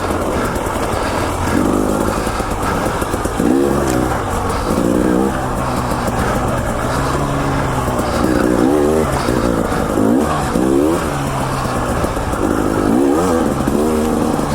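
KTM 300 XC-W TPI two-stroke dirt bike engine being ridden, its revs climbing in short rising bursts every second or two and dropping back between them as the throttle is worked.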